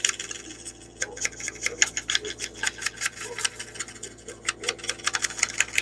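Foam-pad ink blending tool swiped and dabbed over the torn edge of a paper scrap, a quick, uneven run of short scratchy strokes.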